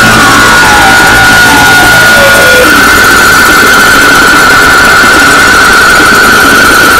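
Noisy electronic synthesizer music: a dense, loud wall of noise under a held high tone. Several falling pitch sweeps come first, and about two and a half seconds in the high tone turns into a fast warble.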